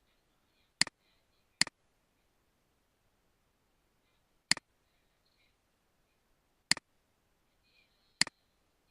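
Computer mouse clicking: five separate sharp clicks, each a press followed at once by a softer release, spaced unevenly over several seconds.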